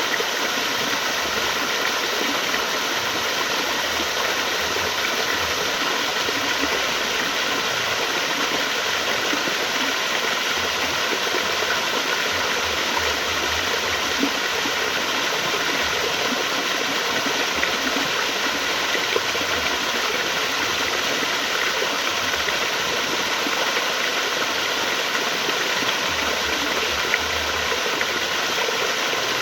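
Flowing water rushing steadily, an even unbroken wash of sound.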